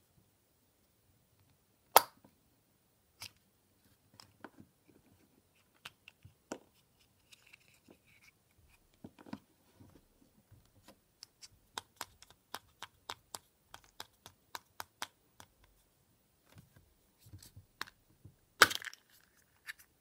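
Kinder Surprise milk-chocolate egg cracked apart by hand with a sharp snap about two seconds in, followed by light clicks and taps as the orange plastic toy capsule is handled. A second loud snap comes near the end as the plastic capsule pops open.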